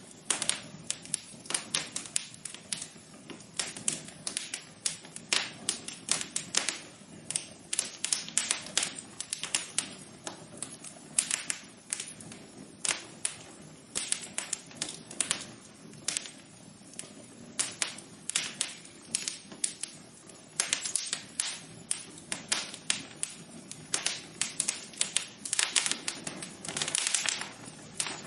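Wood fire crackling in a fireplace: irregular sharp pops and snaps, several a second, over a soft low rush from the flames.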